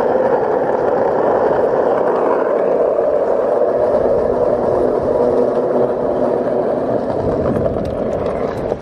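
Skateboard wheels rolling steadily over asphalt, the board pulled along at speed by a husky on a leash; the rolling noise drops away near the end as the board slows.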